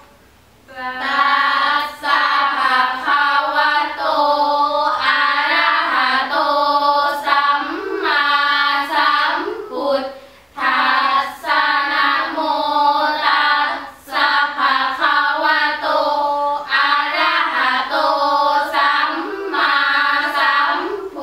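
A group of girls singing Thai Buddhist sarabhanya (สรภัญญะ) chant in unison, a melodic recitation in long, gliding sung phrases. The voices come in about a second in and pause briefly twice, about ten and fourteen seconds in.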